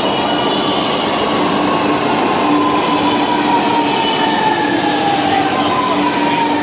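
Chennai Metro electric train pulling into the platform and slowing, its motor whine falling steadily in pitch as it brakes, over the steady rumble of wheels on the rails.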